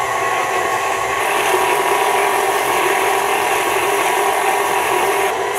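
KitchenAid Artisan stand mixer running steadily, its flat beater creaming butter, sugars and salt in the steel bowl until light and fluffy.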